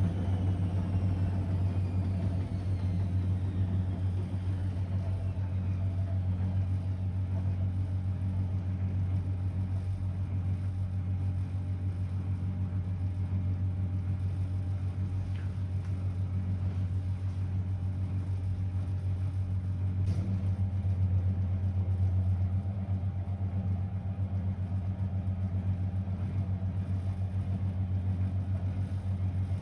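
Blomberg WA391 washing machine running with a steady low hum, with a faint whine falling in pitch in the first few seconds.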